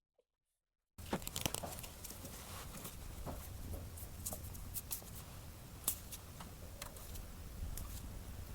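Board game packaging being handled and opened: tearing and crinkling of wrapping with scattered sharp clicks and taps, over a low steady hum that starts abruptly about a second in.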